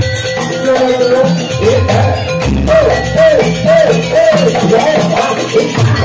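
Jaranan music playing loud: a high melody line over drums and percussion. From about halfway through, the melody repeats a short swooping phrase several times.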